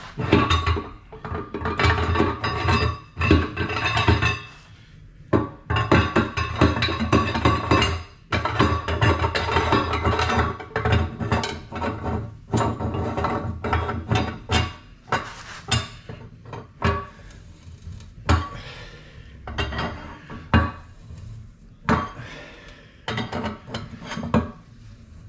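Quick runs of metallic clicks and clinks, broken by short pauses: a tool tightening the bolt that draws the sections of a cast iron radiator together at the joint.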